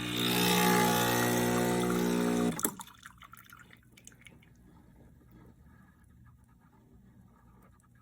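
Sage Barista Express espresso machine's pump buzzing steadily with a hiss of water, then cutting off abruptly about two and a half seconds in, followed by faint drips and ticks.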